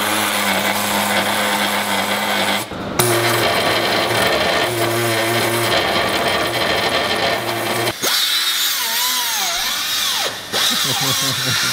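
Handheld cut-off grinder cutting through steel engine-mount studs with a harsh, loud hiss. It stops briefly a few times, and in the last few seconds its pitch wavers up and down as it bites into the metal.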